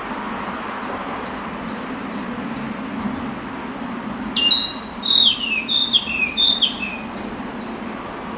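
Male narcissus flycatcher singing one song phrase of clear whistled notes about halfway through: a held high note, then several notes stepping downward. A faint high note repeats about twice a second in the background.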